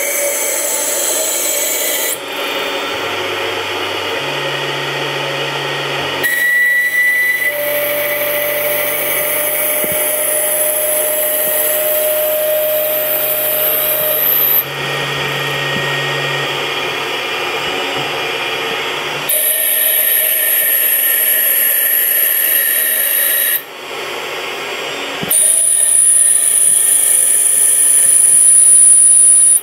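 Tormach 1100 CNC mill spindle turning an acetal bar against a fixed turning tool: a steady high-pitched spindle whine over the hiss of the cut. The pitch and loudness change suddenly every few seconds.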